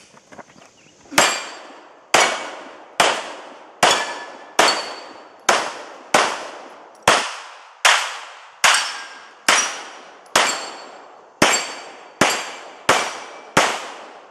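A Heckler & Koch P30L pistol firing a steady string of about sixteen shots, roughly one a second. Each shot is followed by the ringing of a struck steel target.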